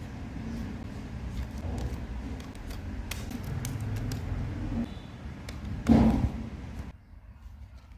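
Handling noise from small hard objects being moved about: scattered light clicks over a low rumble, and a louder knock about six seconds in. The background cuts off suddenly about a second later.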